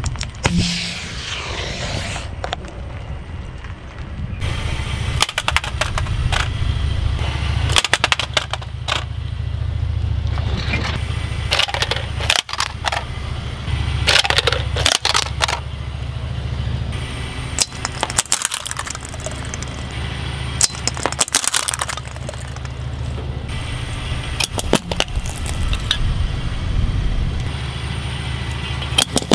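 A car tyre rolling slowly over objects and crushing them one after another: a spray can, a plastic toy truck and a metal jingle bell, each giving clusters of crunching, cracking and crackling. A low steady rumble from the car runs underneath.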